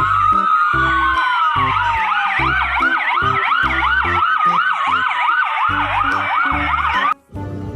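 Electronic fire-engine siren from a toy fire truck. A slow rising and falling wail and a fast yelping sweep, about two a second, play together over background music with a steady beat. They cut off suddenly near the end.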